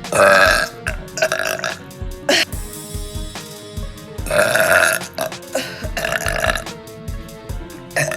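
A woman burping loudly several times in a row: two burps near the start, a short one, then two longer ones a little past the middle. Background music with a steady beat plays underneath.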